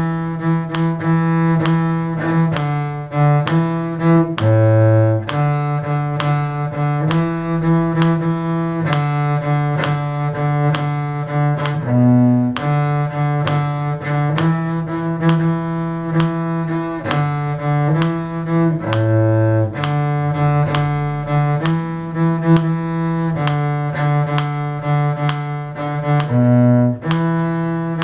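Cello playing a single melodic line in a lilting 6/8 rhythm in G major, bowed notes in a steady pulse with a low note dipping down roughly every seven seconds.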